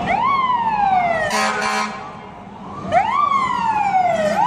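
Emergency vehicle siren wailing: each cycle rises quickly, then falls more slowly, repeating about every three seconds. A brief harsh blast cuts in about a second and a half in.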